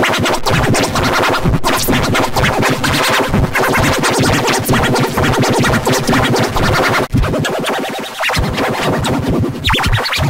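Loud electronic music, heavily distorted and chopped into stuttering, scratch-like repeats, with a brief break about seven seconds in.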